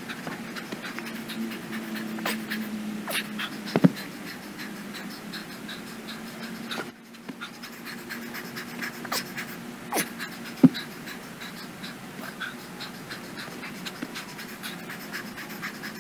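A man panting hard from exertion during dumbbell devil's presses and thrusters, with sharp knocks from the dumbbells, the loudest about four seconds and about eleven seconds in.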